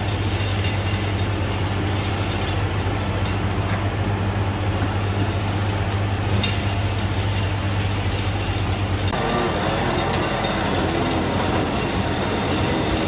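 CZM EK200 rotary piling rig running, a loud steady machine sound with a strong low hum. About nine seconds in the sound changes: the low hum drops away and a wavering, higher machine sound takes over as the Kelly bar works in the bore.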